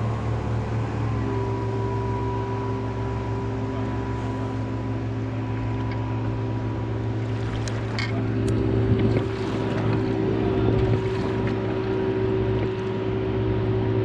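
A boat's outboard motor starts abruptly and runs steadily, its pitch settling slightly about a second in, with a few light knocks partway through.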